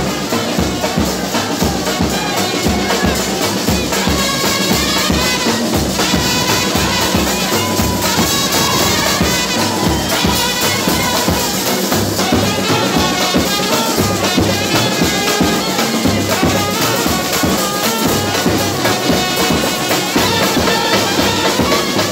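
Street brass band playing live: trumpets and a large brass horn carry the melody over bass drum, snare drums and cymbals keeping a steady beat.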